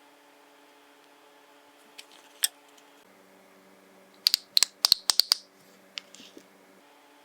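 Small hard objects clicking and tapping during press-on nail work: two clicks about two seconds in, then a quick run of about eight sharp clicks a little past halfway, and one more near the end, over a steady faint hum.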